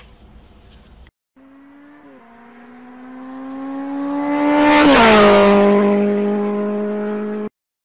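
Electric treadmill motor running with a steady whine and a stack of overtones, growing louder and creeping up in pitch, then dropping to a lower note about five seconds in and holding until it cuts off abruptly near the end.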